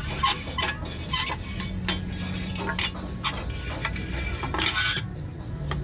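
A flat wooden stick scraping and knocking against a rusty sheet-steel fan housing, working loose rust and old dirt in quick, irregular strokes.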